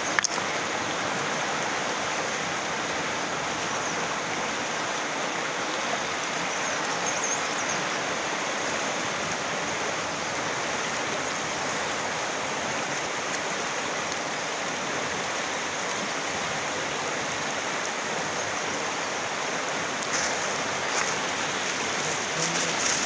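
Fast-flowing river rushing steadily over rocks, with a few brief rustles near the end.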